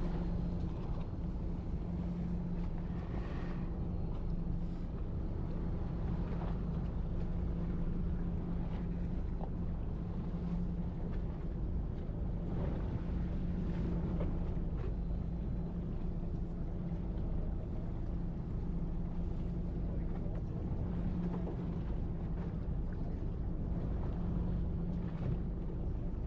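Fishing boat's engine running with a steady low hum, under wind and sea noise.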